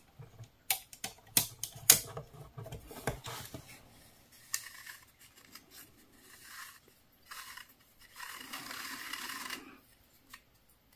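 Small hard objects being handled on a tabletop: a run of sharp clicks and taps in the first three seconds, then several short stretches of rustling or scraping, the longest about a second and a half near the end.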